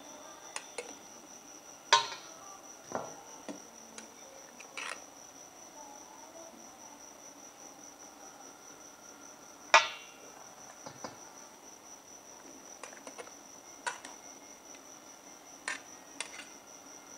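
A stainless steel ladle and wire skimmer clink against a stockpot and a metal bowl as boiled chicken pieces are lifted out of the broth. Two sharp ringing clinks, about two and ten seconds in, stand out from lighter taps, over a steady high-pitched whine.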